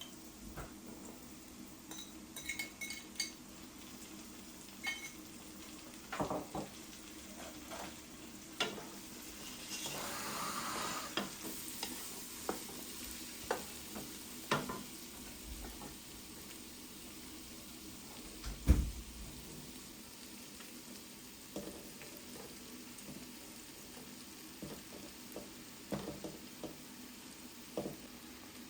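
Food frying in a pan while a utensil stirs it, with scattered clinks and knocks of the utensil against the pan. There is a short burst of louder sizzling about ten seconds in, and one loud knock about two-thirds of the way through.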